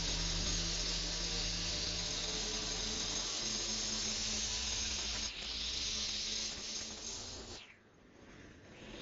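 String trimmer running at full speed, its spinning line whirring as it cuts grass along a concrete kerb edge. The sound drops away sharply about three-quarters of the way through.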